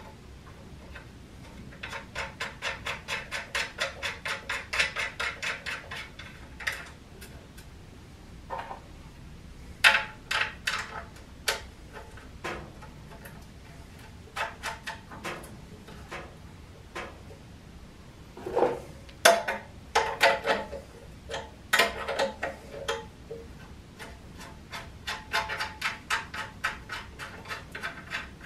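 Hand ratchet wrench clicking in quick runs as nuts are tightened on a gas-tank mounting bracket, with a few sharper metal knocks of the tool and bracket in between.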